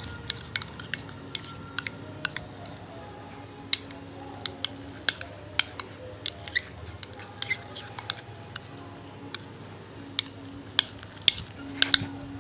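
A stirrer clicking and knocking against a bowl as slime is stirred, in irregular sharp ticks. The slime, made from glue, soap and eye drops, is still sticky at this stage.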